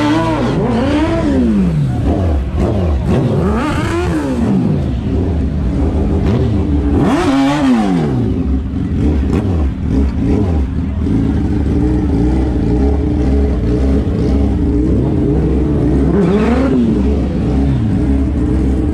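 Sport motorcycle engine revved in sharp up-and-down blips several times, with a steady engine drone underneath through the latter half.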